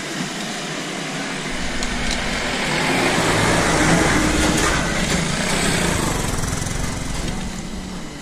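A motor vehicle approaching and passing the cyclists, its engine and road noise growing to loudest about halfway through and then fading away.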